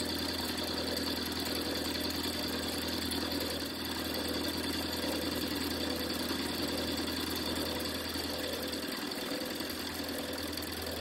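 Vertical milling machine running steadily while a cheap, dull end mill cuts a shoulder into a metal block, making passes downward. The dull cutter is not cutting cleanly.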